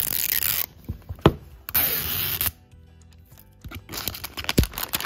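Plastic tear strip being pulled off a toy egg's wrapper: two loud ripping tears in the first half, a couple of sharp clicks, then crinkling plastic near the end.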